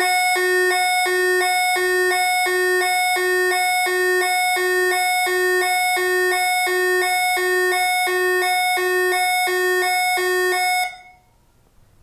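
UM3561 siren-generator IC driving a small loudspeaker through a TIP122 transistor, set to its ambulance sound: an electronic two-tone siren that switches between a high and a low pitch about twice a second. It cuts off abruptly near the end.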